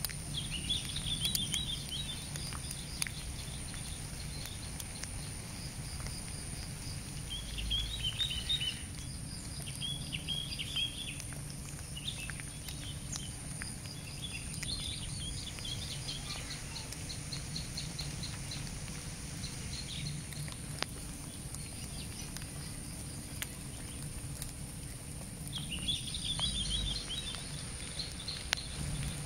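Outdoor nature ambience: small birds chirping in short bursts every few seconds over a steady, high-pitched insect drone, with scattered faint ticks and a low background hum.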